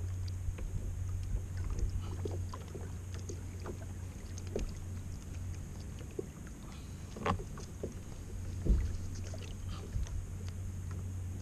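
Water sloshing against a fishing kayak's plastic hull, with scattered light knocks and clicks and a steady low hum underneath; the sharpest knocks come about seven and nine seconds in.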